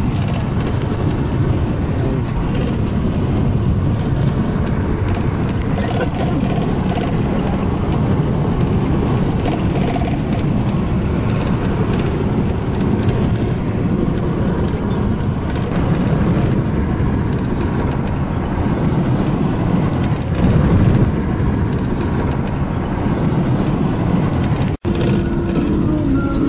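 Steady engine and road noise of a moving vehicle, heard from inside the cabin, with a momentary dropout near the end.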